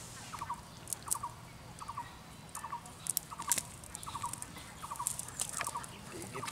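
An animal calling: short groups of three or four quick notes, repeated about every three-quarters of a second, with scattered sharp clicks.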